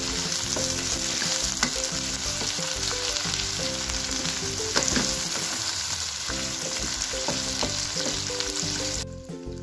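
Chicken pieces and green chillies sizzling in hot oil in a wok over a high flame, while a wooden spatula stirs and scrapes them, with a few scrapes standing out. The sizzle drops away sharply near the end.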